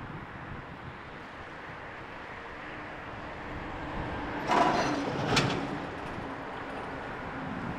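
Jet engines of a Boeing 767-330(ER) running during its takeoff, heard as a steady noise with a faint hum. About four and a half seconds in, a brief louder burst of noise lasts about a second.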